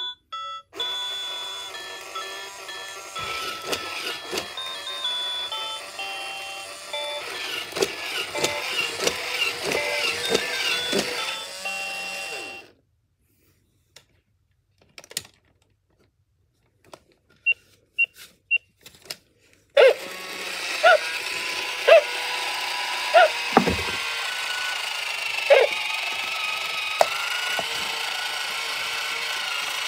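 A robotic toy puppy plays a short electronic tune of stepped beeping notes, then goes quiet apart from a few faint high beeps. From about twenty seconds in, its motors whir steadily as it moves, with short electronic chirps over the top.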